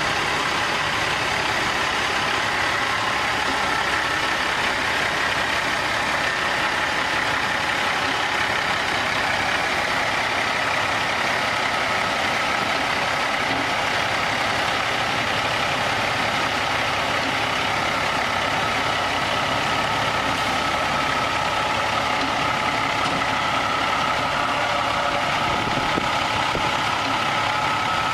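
Heavy-haul semi-truck's diesel engine running steadily at low speed as it pulls a long multi-axle trailer loaded with a huge pressure vessel.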